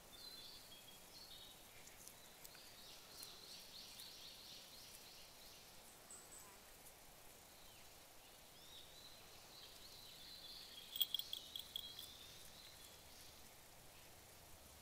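Quiet outdoor ambience with faint high chirping calls in a few short runs, and a quick cluster of sharp clicks and taps about eleven seconds in, the loudest sound.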